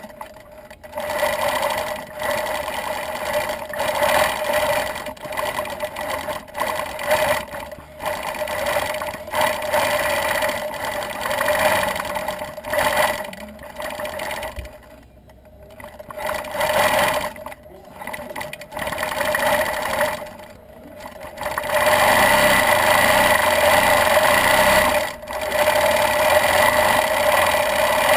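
Gammill longarm quilting machine stitching, its running speed rising and falling as the head is steered through the feather curves, with a few short pauses. It runs louder and steadier over the last few seconds.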